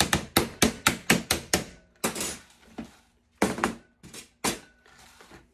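Metal spoon tapping a 3D-printed foaming-soap-tablet mold in quick succession, about five taps a second, to knock loose the mix stuck in its holes, followed by a few scattered knocks.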